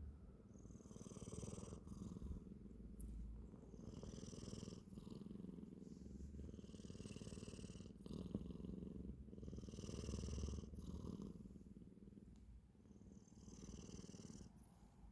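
A sleeping cat purring and snoring: a soft continuous purring rumble with a raspy snoring breath about every three seconds.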